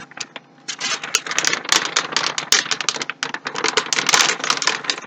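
Graphics card packaging being unwrapped by hand: a dense, irregular crinkling and crackling that starts about a second in and goes on steadily.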